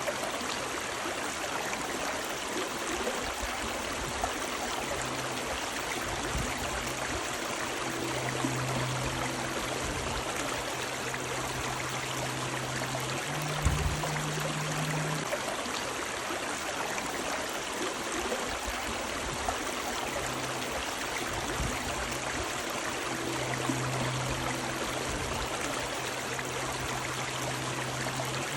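Steady rushing of a river's running water. A low hum fades in and out beneath it, and a soft low thump comes about halfway.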